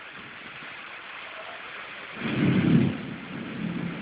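Rain falling in a thunderstorm, an even hiss, with a short, loud, low rumble of thunder a little over two seconds in.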